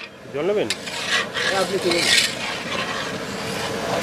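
A long metal ladle stirring thick curry in a large iron kadai, with irregular scraping strokes of metal against the pan. A brief voice sounds in the background about half a second in and again near two seconds.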